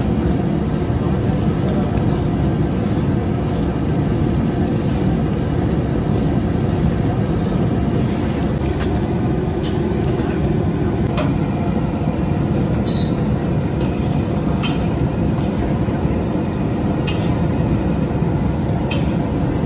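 Steady low rumble of a gas burner firing under a large iron kadai of boiling sugar syrup, with the syrup bubbling hard as it cooks down for sesame candy. Now and then there is a sharp click of the metal ladle or paddle against the pan.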